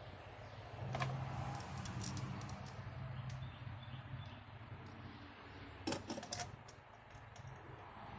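A few light metallic clicks and clinks of hand tools or small engine parts being handled, with a quick cluster of clicks about six seconds in, over a low steady hum.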